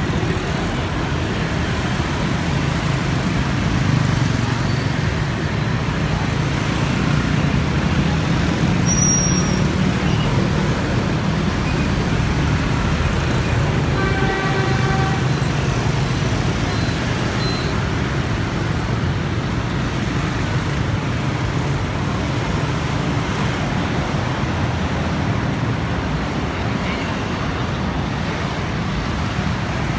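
Dense road traffic of motor scooters and cars running past, a steady low engine rumble. A vehicle horn sounds briefly about halfway through, and a short high squeak is heard about nine seconds in.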